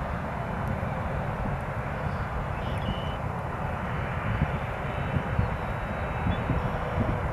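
Jet engines of a Boeing 757 airliner taxiing at low thrust: a steady rushing hum with an uneven low rumble underneath.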